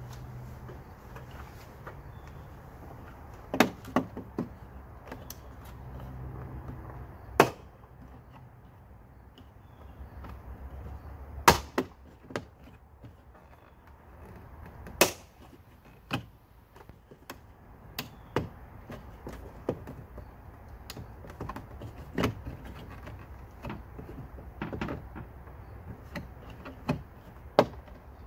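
Sharp clicks and knocks at irregular intervals, about a dozen in all, as the frame of a Lippert screwless RV window is pried and pulled loose by hand, its plastic removal clips and tabs popping free.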